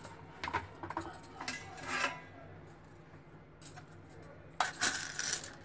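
Peeled garlic cloves dropped into a stainless-steel mixer-grinder jar onto coconut pieces: several light clicks and taps on the metal in the first two seconds. Near the end comes a louder, longer rattle of handling noise at the jar.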